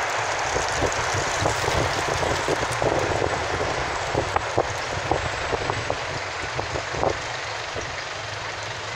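Steady road and engine noise of a moving vehicle, heard from the vehicle itself, with a scattered run of short sharp ticks and knocks through the middle that ease off near the end.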